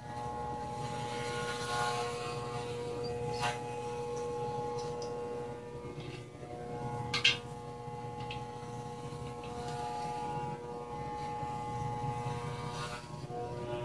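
Electric hair clippers running with a steady buzz as they cut through long hair, a layer at a time. Two short sharp clicks break in, the louder about seven seconds in.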